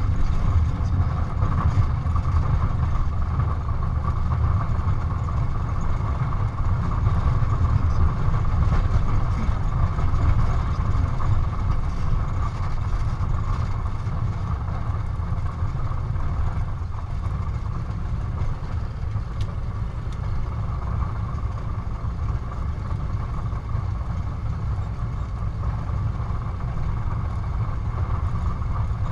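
Single-engine light aircraft's piston engine and propeller running at low power while taxiing, heard from inside the cockpit as a steady low drone.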